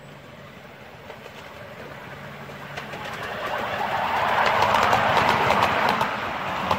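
Miniature railway train running along the track, growing steadily louder over about four seconds as it comes near, with scattered sharp clicks.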